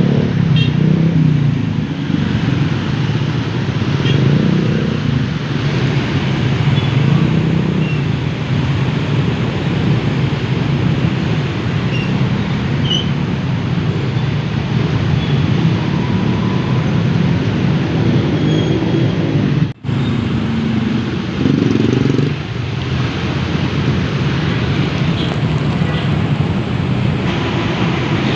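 Dense city road traffic: a steady mix of car and motorcycle engines and tyre noise. The sound cuts out for an instant about twenty seconds in.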